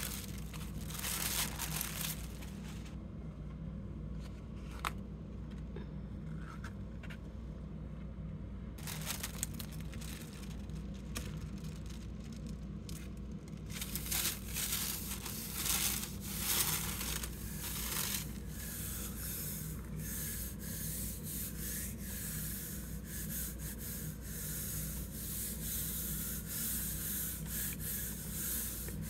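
Hands handling and rubbing thin artist tissue paper over an acrylic-inked gel printing plate: papery rustling and brushing, sparse at first and turning to steady rubbing about halfway through as the sheet is burnished down to pull a print. A steady low hum runs underneath.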